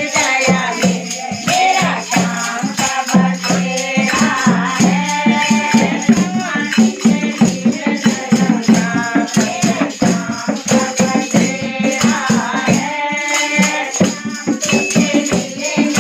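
A group of women sing a Garhwali devotional kirtan bhajan together, with dholak drums and hand clapping keeping a fast, steady beat.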